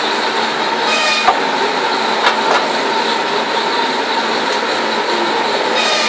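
Sawmill machinery running steadily between cuts, with a faint steady hum, as sawn timber rolls along the roller table; a couple of sharp wooden knocks come about one and two seconds in.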